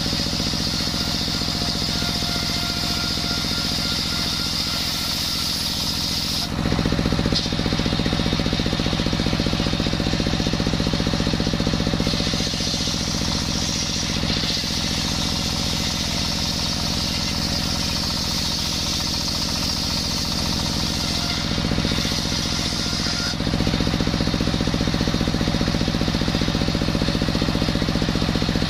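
Stationary single-cylinder diesel engine running steadily under load, belt-driving a circular saw bench that rips through coconut wood, with the blade's high cutting whine over the engine's running. The sound grows louder and heavier about a quarter of the way in and again near the end as the cut changes.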